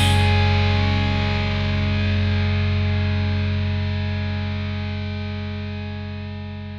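Final chord of a rock song on a distorted electric guitar, left ringing after the drums stop and slowly fading out.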